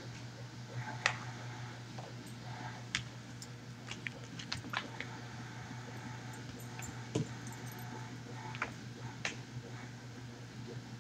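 English Springer Spaniel puppy playing with a soccer ball indoors: scattered light clicks and taps at irregular intervals, over a steady low hum.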